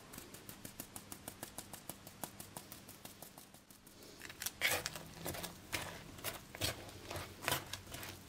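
A small mesh strainer tapped rapidly, several light ticks a second, as instant yeast is sifted into flour. About four seconds in, wooden chopsticks start stirring the flour and sliced onions in a wooden bowl: louder, irregular knocks and scrapes about twice a second.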